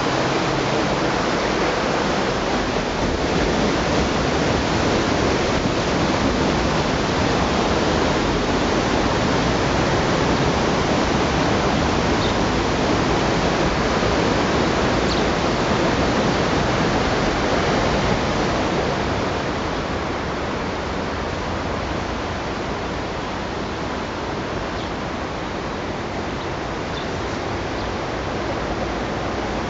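Steady rushing noise, even and without any tone or rhythm, dropping slightly in level about two-thirds of the way through.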